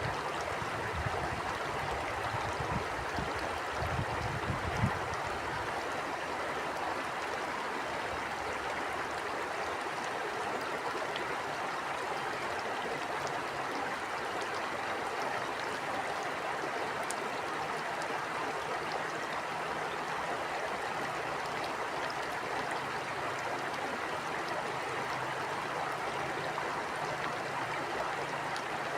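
Stream water flowing and rushing steadily, with a few low gusts of wind rumbling in the first five seconds.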